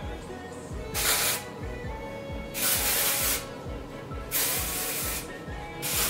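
Aerosol volumizing texture spray hissing from its can in four short bursts, each under a second long, the last starting just before the end.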